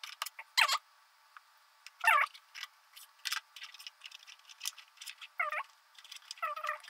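Small clicks and handling noises of hands plugging the wire connectors of a battery-powered kit circuit together, with a few short squeaks among them.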